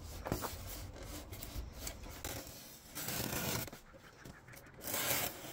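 Cardboard rubbing and scraping over rigid foam board as a template is handled and cut with a utility knife, louder for a moment about three seconds in and again near the end.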